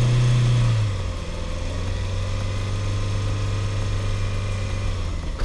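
Mahindra Thar's engine running steadily under load as the 4x4 crawls slowly over a steep dirt mound. It is louder and slightly higher in pitch for the first second, then eases down and holds an even note.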